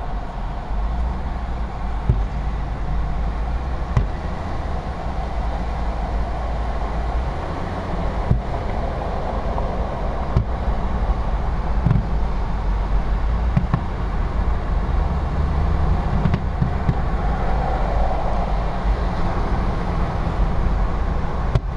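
Steady low road and engine rumble of a car in freeway traffic, heard from inside the cabin. A few faint thumps from distant fireworks bursting come through it.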